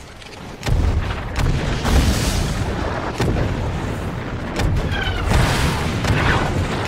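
A sudden heavy boom about two-thirds of a second in, then continuous low rumbling with sharp cracks of explosions and a few brief falling whistles.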